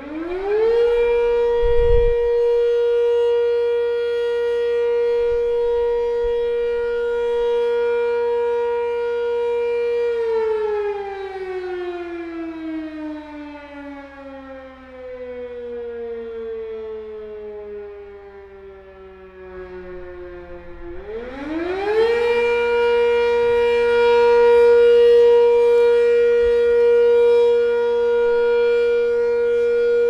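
Eight-port Sentry 10V outdoor warning siren sounding for a fire siren test: it winds up to a steady high tone, holds it for several seconds, then slowly winds down in pitch. After about ten seconds of falling it winds back up and holds the steady tone again.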